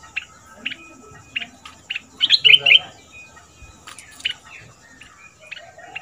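Caged stripe-throated bulbul singing: a string of short, sharp chirping notes, with a louder run of quick notes a little past two seconds in.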